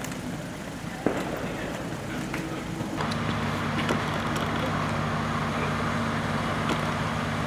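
Outdoor street noise with a single sharp crack about a second in, then from about three seconds a steady low engine hum of an idling vehicle.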